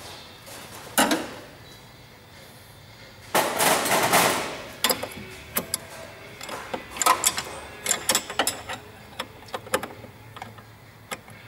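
Spanner working the metal bolts and fittings of a fuel-water trap: irregular metal clicks and taps, a sharp knock about a second in, and a longer rasping run of clicks about three and a half seconds in.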